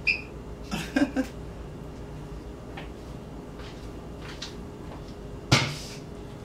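A kitchen cupboard door knocking shut once about five and a half seconds in, with a short ring after it. Before it come a short high squeak at the very start and a few small handling knocks about a second in.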